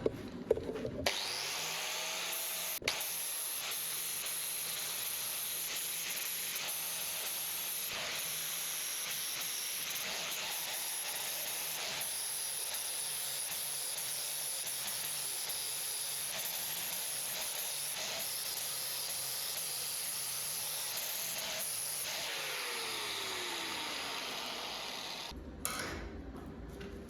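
Angle grinder grinding down weld beads on the steel auger: a steady hiss of the disc on metal over a high motor whine, starting about a second in. Near the end the grinder is let off and its pitch falls as it winds down.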